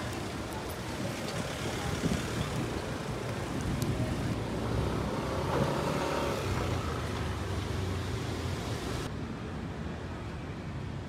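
City street traffic noise: a steady hum of passing cars and engines, changing in character about four and again about nine seconds in.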